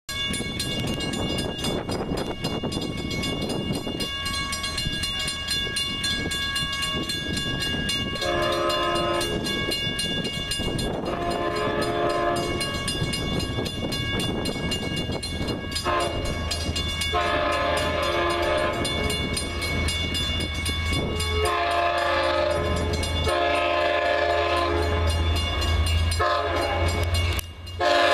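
LIRR DE30AC diesel locomotive sounding its multi-chime air horn in a series of long and short blasts as it approaches a grade crossing, over the steady ringing of the crossing bell. The locomotive's low engine rumble grows louder as the train draws near.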